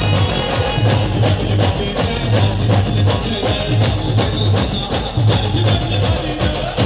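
Loud amplified music from a procession band's truck-mounted sound system: a heavy, regularly repeating bass beat under busy percussion and melody.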